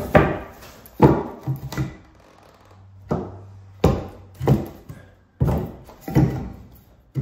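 Short loose pieces of old wooden floorboard being picked up, dropped and knocked into the gaps of a lifted board floor while being test-fitted: a run of about a dozen hollow wooden thunks and knocks at uneven intervals.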